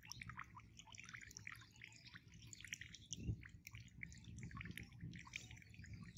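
Cast net being hauled in through shallow water by its rope: faint, scattered dripping and small splashes as the net drags across the surface, with one soft thump about halfway through.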